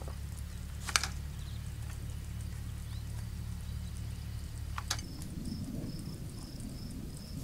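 Two sharp clicks, the first about a second in and the second just before five seconds, as a reach grabber picks up broken glass. From about five seconds on, crickets chirp in an even repeating rhythm, two or three chirps a second.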